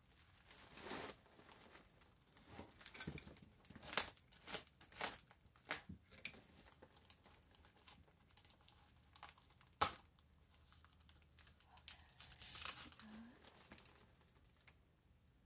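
Bubble wrap and plastic wrapping crinkling and rustling in irregular handfuls while packing tape is pulled and torn off, with a few sharp snaps, the loudest about four seconds in and again near ten seconds.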